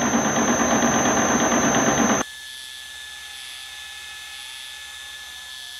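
Metal lathe cutting steel on a deeper 40-thousandths pass, the tool breaking its chips, a loud steady machining noise. About two seconds in it cuts off abruptly, leaving a quiet steady hum.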